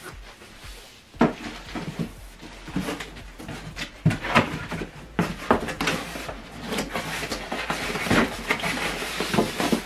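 Unboxing noise: boxes and packaging being handled, with irregular knocks, scrapes and rustling that grow busier toward the end.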